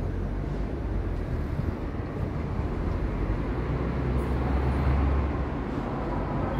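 Outdoor street ambience: a steady low rumble that swells about four seconds in and eases back just after five seconds.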